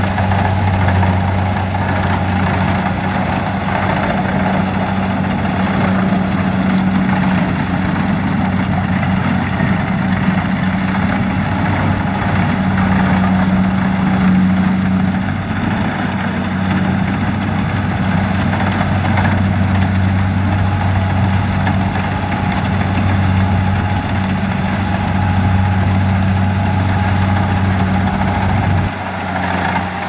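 Kubota DC70 rice combine harvester's diesel engine running steadily with a low drone while the machine cuts and threshes rice.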